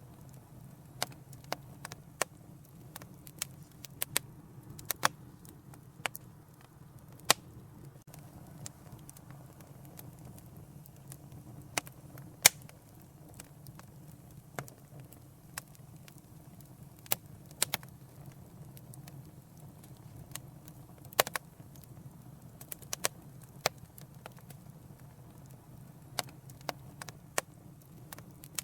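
Wood fire burning in a fireplace: a steady low rumble of flames with irregular sharp crackles and pops, a dozen or more loud snaps scattered through.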